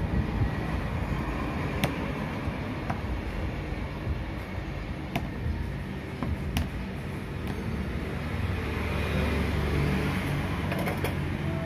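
Steady low rumble of passing road traffic, swelling near the end, with a few sharp clicks.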